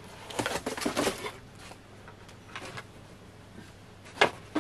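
Rustling, scraping and light knocks of items being put back into a cardboard box and the box flaps being handled, with one sharper tap a little after four seconds in.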